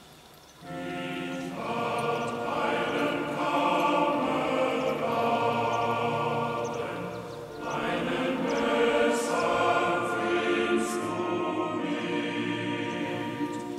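Background choral music: a choir singing slow, sustained chords. It comes in about a second in and swells, with a brief dip about halfway through.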